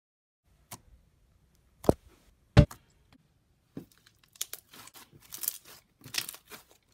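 A few sharp clicks, then a fast run of crackling, tearing-like sounds from hands working something small between the fingers.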